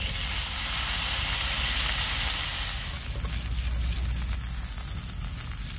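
White wine sizzling in a hot frying pan of melted butter, garlic and salt as it reduces into a sauce. The sizzle is loudest at first and then slowly eases to a steadier bubbling hiss.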